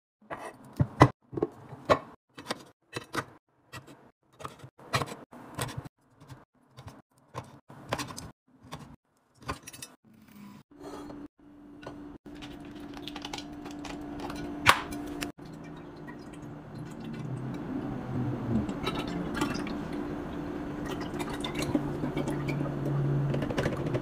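A string of sharp clicks and knocks as items are set down on a kitchen countertop. About eleven seconds in, oat milk starts pouring from a carton into a glass milk jug, a steady splashing pour that grows slightly louder as the jug fills.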